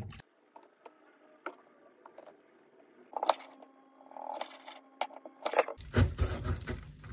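Kitchen food-preparation noises: scattered clicks and light knocks, then from about six seconds in a busy run of knocks and clatter.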